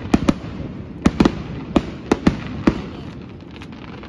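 Aerial fireworks bursting: an irregular run of sharp cracks and bangs over a low rumble, thinning out near the end.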